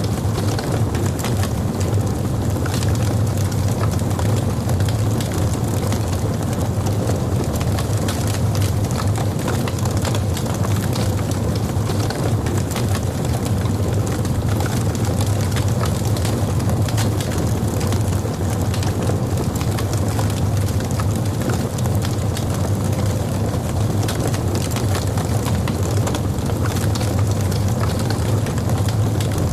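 Wood logs burning in a fireplace: a steady low rumble of flame with many small, sharp crackles and pops scattered throughout.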